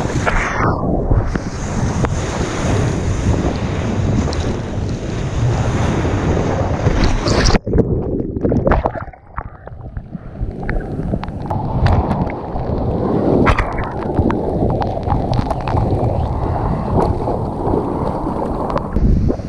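Rushing whitewater and splashing against an action camera on a surfboard riding through the foam, with wind buffeting the microphone. The rush stops abruptly about seven and a half seconds in, stays lower for about two seconds, then comes back with scattered sharp splash clicks.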